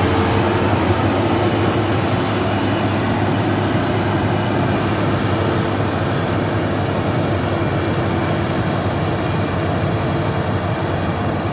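Combine harvester running steadily, a loud, even engine drone.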